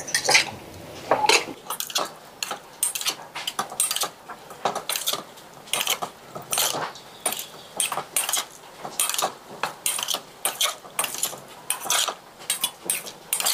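A spoon clinking and scraping against a bowl in a steady run of short knocks, a few a second, while boiled potato pieces are mixed with seasoning and hot oil.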